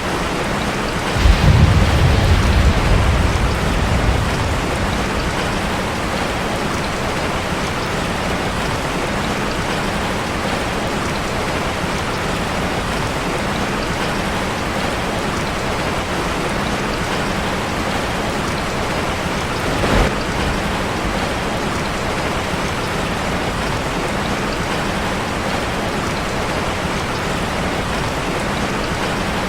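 Steady rain falling on a street. A low rumble of thunder breaks in suddenly about a second in and dies away over the next few seconds. Much later there is a single short, sharp sound.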